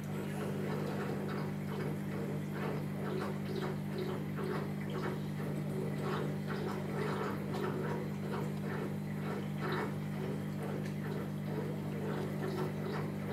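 Steady low hum from aquarium equipment, with water bubbling in many small, irregular pops over it.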